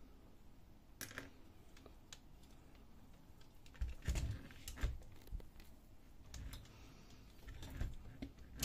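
Scattered clicks and light knocks of the plastic and metal parts of an HP Color LaserJet CP3525 fuser unit being handled as a cover comes off, with a few louder clicks and soft thumps about four seconds in as the fuser is turned and set down.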